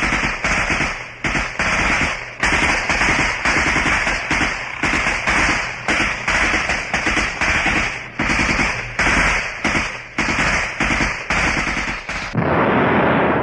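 Battle gunfire: a long, irregular run of loud shots, about two to three a second, each with a short ringing tail. Near the end the shots give way to a continuous heavy noise.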